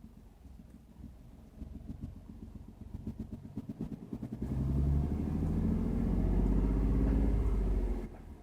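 2015 Ford F-150's 3.5-litre Ti-VCT V6 engine running with a rhythmic pulsing, revved up about four and a half seconds in and held for a few seconds, then let back down near the end. The owner says this engine has a knocking noise.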